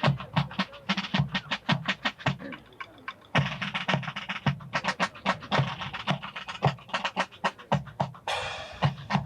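Marching drum line playing a cadence: rapid snare-like taps over steady bass-drum beats about twice a second, with a long crash about 8 seconds in.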